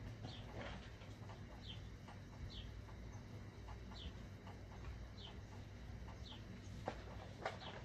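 A bird chirping over and over, a short falling chirp about once a second. Two louder short squeaks come near the end.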